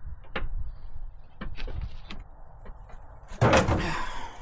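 Light knocks and clicks of a Land Rover Defender's bonnet being worked free at its hinges. About three and a half seconds in there is a loud metallic clatter that rings on briefly.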